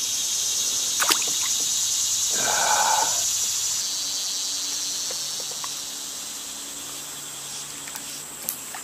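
Cicadas singing in the trees as a steady, high, hissing drone. It drops in level about four seconds in.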